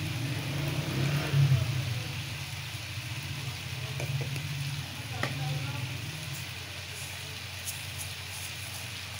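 Cubed potatoes frying in oil in a non-stick wok: a steady sizzle, with a few faint clicks.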